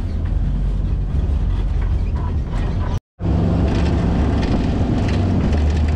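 Hunting vehicle's engine running and rumbling as it drives over a dirt track, heard close up from a camera mounted on the vehicle. The sound cuts out completely for a split second about halfway.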